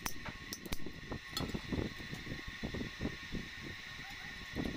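Scattered light clicks and knocks as a small sheet-metal plate and a pointed hand scriber are handled and worked, over a faint steady high hum.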